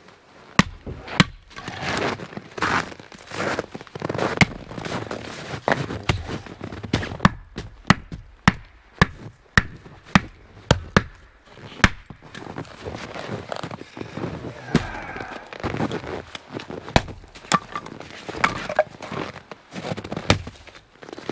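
Axe and hatchet chopping firewood: sharp, irregular chops about one or two a second, some from a full axe swung overhead and some from a hatchet splitting kindling on a block.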